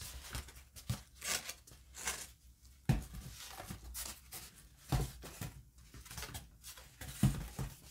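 Stiff cardboard floor sheets faced with wood-plank paper being handled and laid down: rustling and light scraping, with a few soft knocks as sheets are set down.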